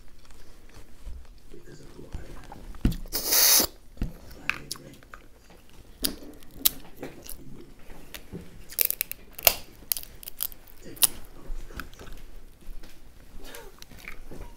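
Snow crab leg shells being cracked and snapped apart by hand, giving scattered sharp cracks and clicks, with close-up chewing. A louder crunching burst comes about three seconds in.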